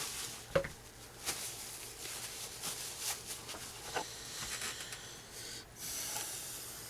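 Light handling noise of small RC-car parts: scattered clicks and taps of a plastic hub and small bearings being handled and greased, with a sharper click about half a second in.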